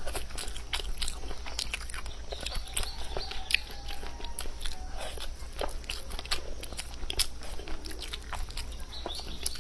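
A person eating: chewing and crunching, with many irregular crisp clicks of bites and mouth sounds.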